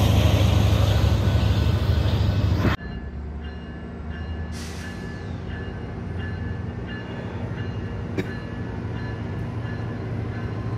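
Loud, steady rumbling noise that cuts off abruptly about three seconds in. It gives way to a Northstar bilevel commuter train rolling slowly past, a steady low hum with faint high tones and a single click near the end.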